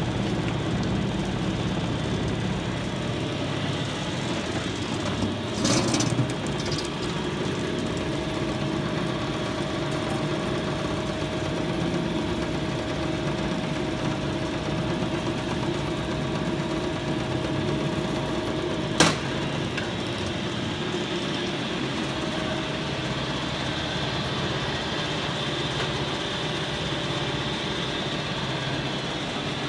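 Industrial duster machine, a powder applicator with a wire-mesh conveyor, running steadily with a mechanical drone. A faint steady whine joins it for a stretch, there is a brief louder clatter about six seconds in, and a single sharp knock near nineteen seconds in.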